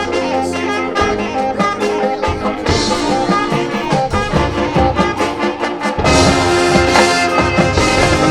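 High school marching band playing its field show: brass over drumline, with the full band coming in louder about six seconds in.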